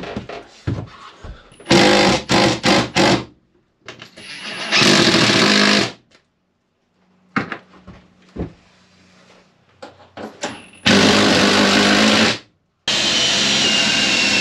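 Cordless drill boring into timber framing: several short trigger bursts about two seconds in, a longer run about five seconds in, then two long steady runs from about eleven seconds on.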